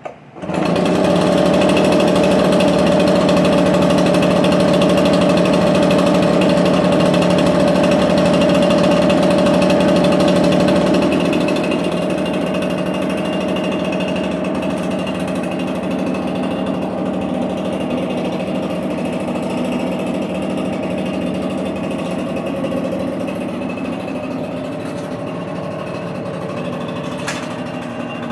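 Echo PB770H backpack leaf blower's two-stroke engine catching right away on a warm restart and then running steadily. It drops a little in level about eleven seconds in.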